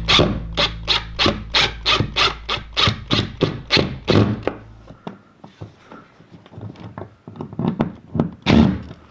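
Background guitar music with an even strummed beat, cutting off about halfway. After it come scattered light knocks and rubbing from handling tools and cable, with one louder knock near the end.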